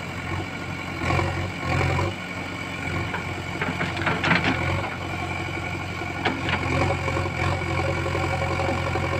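JCB backhoe loader's diesel engine running steadily, with a few short clanks about four and six seconds in.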